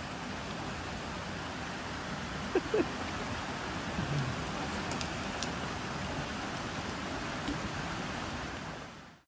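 Small brook rushing over a rocky cascade, a steady hiss of running water, with two brief knocks about two and a half seconds in; it fades out near the end.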